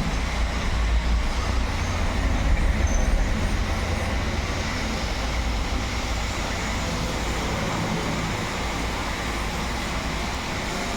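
Steady low rumble with an even hiss over it, slightly louder around two to three seconds in, with no distinct tool strikes.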